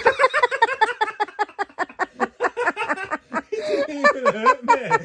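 A person laughing hard in a quick run of short bursts, about five a second, breaking near the end into lower, wavering laughing sounds.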